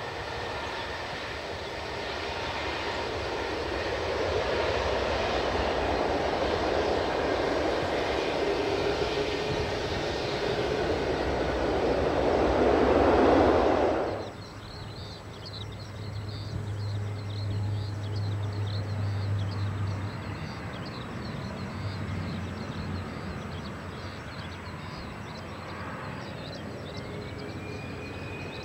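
Jet engine noise of a Boeing 777-200ER on its landing rollout, powered by Rolls-Royce Trent 800 engines, swelling steadily louder for about fourteen seconds, then cut off abruptly. After it comes the quieter, more distant sound of a Gulfstream G550 business jet on final approach, with a faint rising whine near the end.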